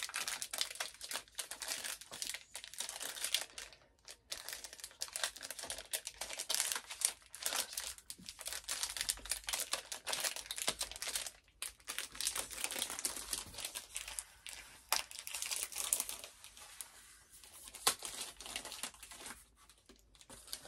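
Chocolate bar wrapper crinkling and tearing as it is worked open by hand, in uneven bursts of crackle that thin out near the end.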